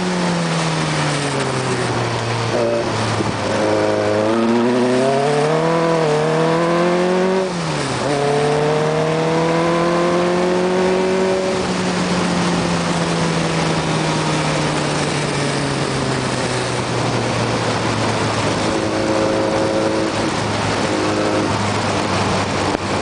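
Onboard sound of a Lotus 61 single-seater racing car's engine driven hard round a lap: the note rises under acceleration and falls on lifting off, with a sharp drop and pick-up about eight seconds in. A steady rush of wind over the microphone grows stronger in the second half and partly covers the engine.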